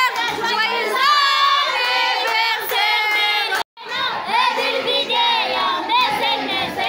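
A group of women singing and chanting together in high voices. The sound cuts out suddenly for a moment a little past halfway, then the singing resumes.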